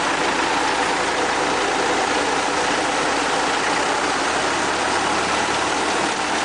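Engine idling steadily at low throttle, just after being started with the key.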